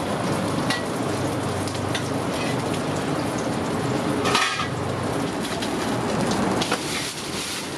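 Hotteok frying in oil on a street-stall griddle, a steady sizzle, with a short clatter a little past halfway.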